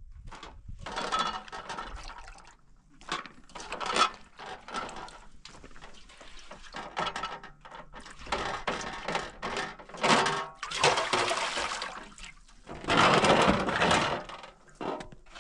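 Hands splashing and swishing water in a metal bowl while washing chopped green vegetables, in irregular bursts with short pauses between them.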